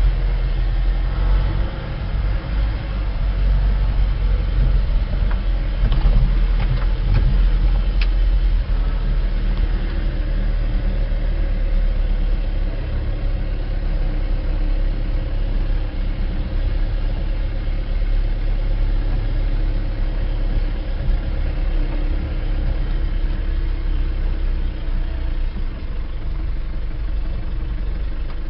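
Vehicle engine and tyre rumble heard from inside the moving vehicle on a dirt track: a steady low rumble, with a few faint clicks a little before the middle.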